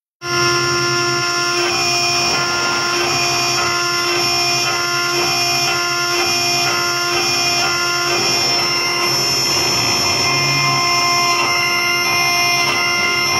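BJD 4040 CNC router spindle engraving a metal plate with a fine bit: a steady whine made of several held tones over a scratchy cutting noise. It starts abruptly just after the beginning.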